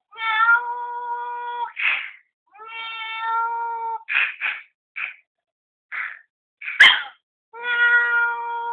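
Chihuahua giving long, steady, high-pitched whining calls, three times, with short sharp yaps in between. The loudest, sharpest yap comes about seven seconds in. The dog is worked up at what it takes for a cat.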